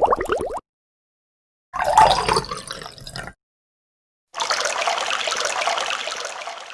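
A string of separate sound-effect clips with dead silence between them. A fast pulsing sound cuts off just after the start. About two seconds in comes a short sudden sound that dies away. Then a steady hiss like running or pouring water starts and fades out near the end.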